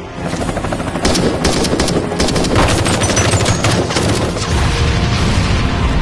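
Rapid automatic gunfire, many shots overlapping in a dense fusillade, growing louder about a second in.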